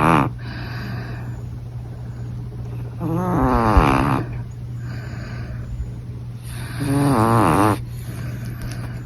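Small dog snoring in its sleep: two long whistling snores, near the three- and seven-second marks, each falling in pitch and lasting about a second, with the tail of another at the very start. A steady low hum runs underneath.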